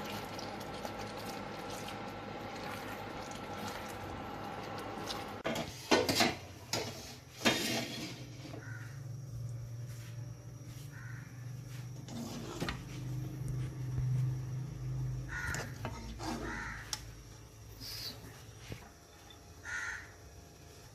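Crows cawing several times in short, spaced calls over a low hum. A few loud knocks and clatter come about six to eight seconds in.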